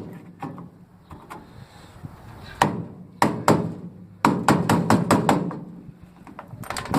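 Sharp metal knocks of a tool on an aluminium diamond-plate toolbox lid as an end cap is worked loose: a few spaced strikes, then a quick run of about six, and more near the end.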